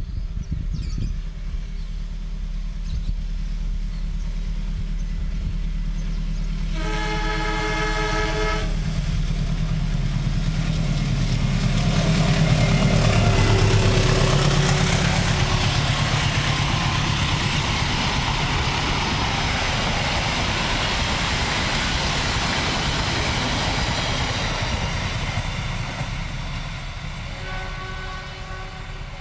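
A General Electric diesel-electric locomotive rumbling in as it approaches, sounding its chord horn once for about two seconds around seven seconds in: the semboyan 35 warning signal for the level crossings. The engine is loudest as it passes about thirteen seconds in, then the coaches roll by with steady wheel-on-rail noise that slowly fades, and the horn sounds again, fainter, near the end.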